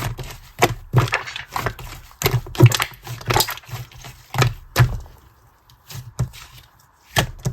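Clear slime being coiled and folded by hand, giving irregular sharp pops and clicks, several a second, thinning out to a few separate pops in the last couple of seconds.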